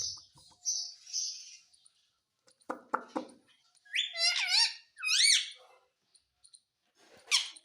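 Pet parrot calling: raspy, hissing squawks at the start, then loud high warbling calls with bending pitch around the middle, and a falling squawk near the end.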